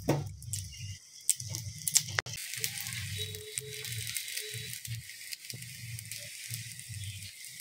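Suji (semolina) dosa batter sizzling on a hot tawa, a steady hiss that sets in about two seconds in, after a few sharp clicks.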